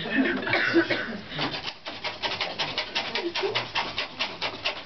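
Rapid rasping strokes of a long-handled hollowing tool scraping out the inside of a wooden clog blank, about six strokes a second, with voices in the first second.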